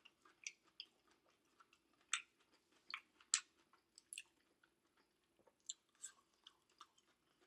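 Faint chewing of a mouthful of food: soft, scattered mouth clicks and wet smacks, about a dozen over several seconds.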